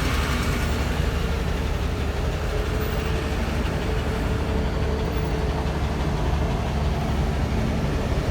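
Kenworth T800 truck's diesel engine running steadily, a deep even rumble with no revving.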